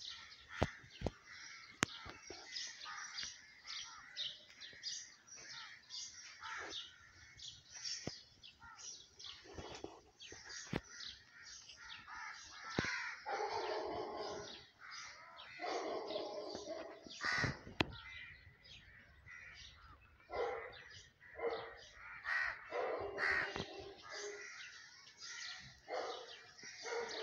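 Birds calling: a constant chatter of small-bird chirps, with harsh crow caws of about a second each repeating from the middle on. A few sharp clicks stand out.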